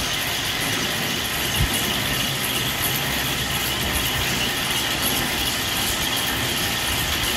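Electric motor and belt-driven screw mechanism of a henequen fibre baling press running with a steady mechanical hum. A single low knock sounds about one and a half seconds in.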